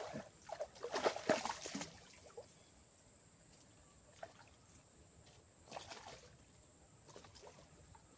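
Shallow water splashing and sloshing at the bank's edge, in a quick cluster in the first two seconds, then a few single splashes now and then, over a faint steady high hiss.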